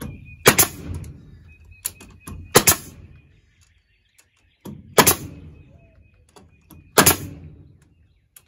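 Pneumatic staple gun firing staples through hardware cloth into a wooden frame: four sharp shots about two seconds apart, each with a short fading tail, and a few small clicks between.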